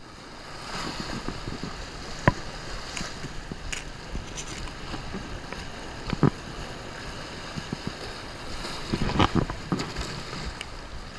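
Small waves washing and splashing against jetty rocks, with wind on the microphone. A few short sharp taps sound now and then over the water.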